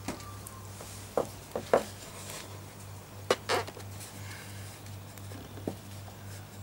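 Short sharp knocks and clicks of light model-aircraft parts being handled and fitted together as the tail section of a scratch-built twin-boom RC plane goes on: three close together about a second in, two more about three seconds in, and a faint one near the end.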